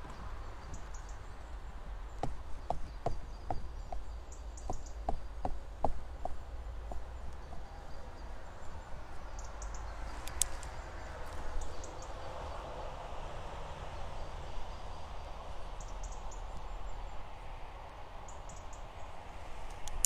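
Outdoor ambience: a steady low wind rumble with faint high chirps every few seconds. A run of about a dozen light taps, roughly two a second, comes a couple of seconds in, and one sharper click about halfway.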